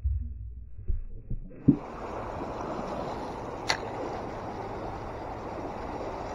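Muffled low thumps from a camera under the water, then, about one and a half seconds in, the steady rush of flowing river water, with one sharp click midway.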